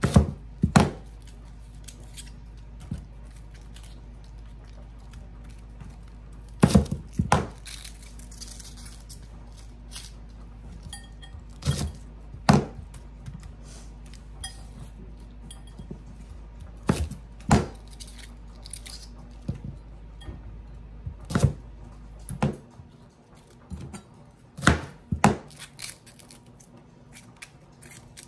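Chef's knife cutting Brussels sprouts on a cutting board: sharp knocks of the blade on the board, often two in quick succession, every few seconds, with quieter handling of the sprouts between. A steady low hum underneath stops about two-thirds of the way through.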